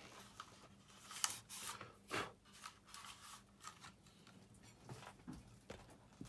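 Faint handling noise: a few scattered small clicks and soft rustling, as of hands moving small parts.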